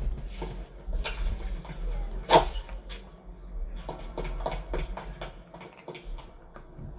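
Film Foley: scattered soft rustles and small clicks, with one louder knock about two and a half seconds in, over a steady low hum.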